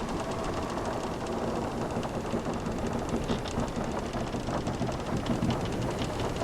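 Wooden sailing ship's timbers creaking with many small irregular clicks and ticks, over a steady wash of ocean waves.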